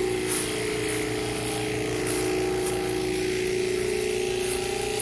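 A steady motor drone holding one constant pitch, with a few faint light clicks over it.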